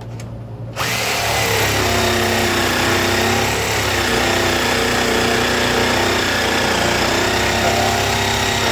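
Bauer 20V cordless jigsaw starting up about a second in and cutting steadily through 1-inch-thick hardwood mahogany, set to its fastest speed with its most aggressive blade, on a battery down to its last bar.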